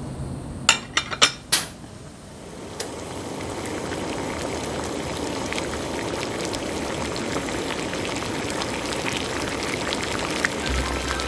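A pot of broth with cabbage bubbling on a gas stove while a metal ladle stirs it. A few sharp clinks about a second in.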